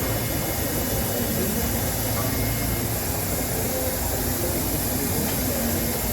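Steady machine-shop background noise: a continuous mechanical hum and hiss of shop machinery running, with no distinct knocks or changes.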